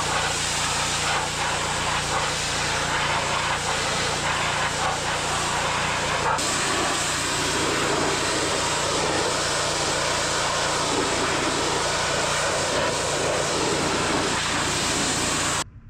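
Engine-driven pressure washer running, a steady engine drone under the loud hiss of its water spray, stopping suddenly near the end.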